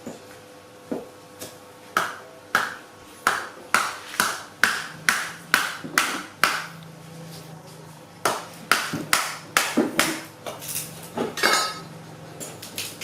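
Kitchenware clinking: a metal utensil knocking sharply against pots or dishes, about two strikes a second in two runs with a short pause between.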